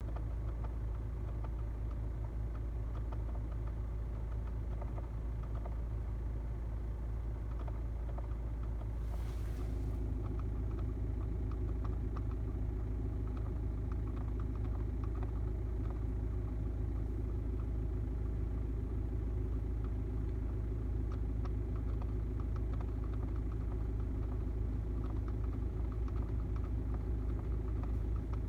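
Skoda Octavia 1.9 TDI four-cylinder turbodiesel idling steadily in cold weather, with rapid faint ticking over a low hum; somewhere in it is a strange noise that the owner hears only at low temperatures, at idle and also with just the ignition on. A brief hiss about nine seconds in.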